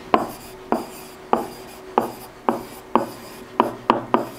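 A pen writing a word on a digital whiteboard: the tip taps sharply onto the board with each stroke, about two taps a second, with faint scratching as it is drawn across the surface.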